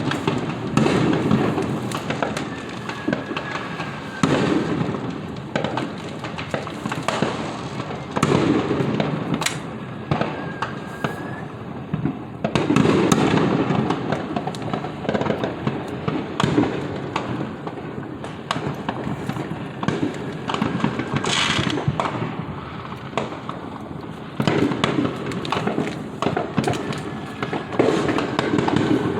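Fireworks going off without a break: many overlapping bangs and crackles, with louder volleys every few seconds and a few faint whistles.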